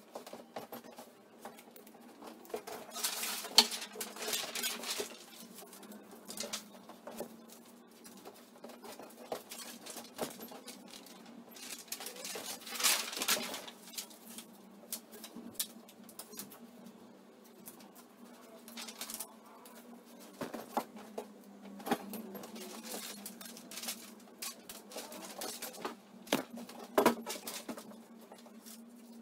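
Large paper sheets rustling against a wall while pieces of tape are torn off and pressed on, with scattered light taps and clicks and two longer rustles, one a few seconds in and one about halfway. A faint steady low hum runs underneath.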